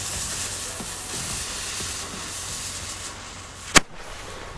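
A lit firecracker fuse hissing steadily, then a single sharp bang near the end as the firecracker goes off.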